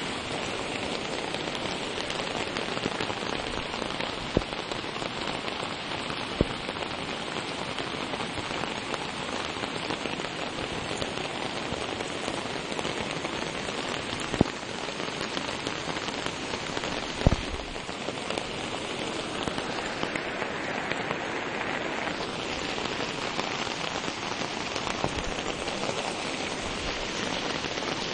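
Steady heavy rain falling, with four sharp knocks, one of them the loudest moment about two-thirds of the way through.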